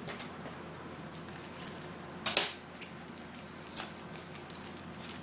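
Foil wrapper of a Bowman baseball card pack being handled and torn open: faint crinkling, one loud short rip a little over two seconds in, and a smaller crackle near four seconds.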